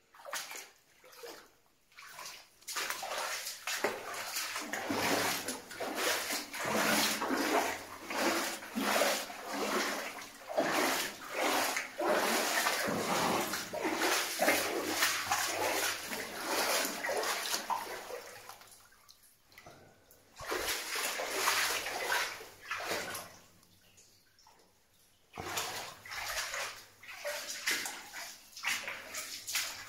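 Boots wading and splashing through shallow water in a mine passage, a quick run of sloshing steps that pauses twice, about two-thirds of the way through and again shortly after.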